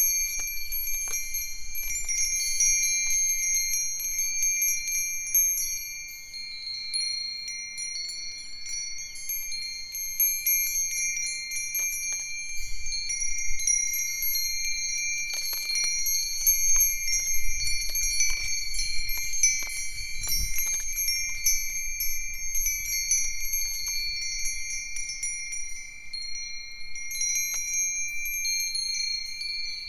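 A set of Japanese wind chimes (Myōchin fire-tongs chimes, a Nanbu cast-iron chime, a Nōsaku chime and a sanukite stone chime) ringing together in the breeze, with many light overlapping strikes and clear, long-sustained high tones.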